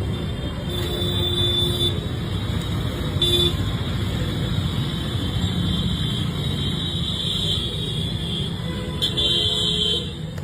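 Royal Enfield single-cylinder motorcycle engine running steadily, with short horn-like toots about a second in and again about three seconds in.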